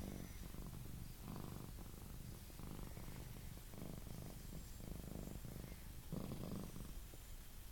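Himalayan cat purring steadily while being petted, the purr swelling about once a second with its breathing.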